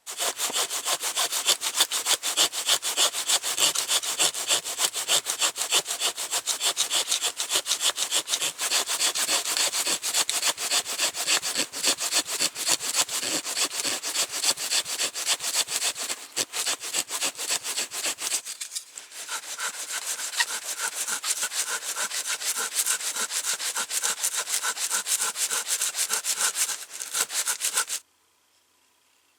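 Hand saw cutting through wood in quick, steady strokes. About two-thirds of the way through the rasp turns thinner and higher, then it cuts off suddenly near the end.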